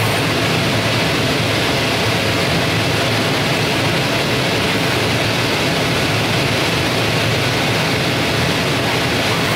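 Steady, even rushing noise from a Zund 3G digital flatbed cutter at work, its vacuum hold-down blower running while the gantry and V-cut tool head move over corrugated board.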